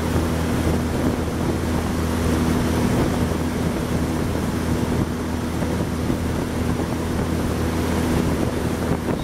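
A boat's motor running at a steady speed while under way, an even hum that does not change pitch, with wind blowing on the microphone.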